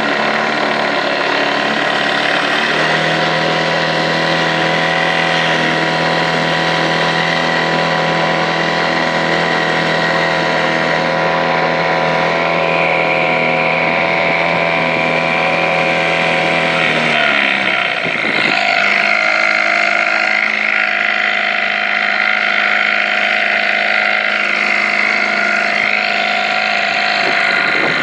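Evinrude 4 hp two-cylinder two-stroke outboard motor running. Its pitch steps up slightly a few seconds in; about two-thirds of the way through it drops sharply and then rises and falls as the engine speed changes.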